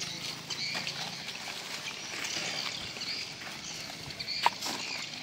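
Dry joss paper and paper offerings rustling and crinkling as they are handled and stacked, with one sharp crack about four and a half seconds in.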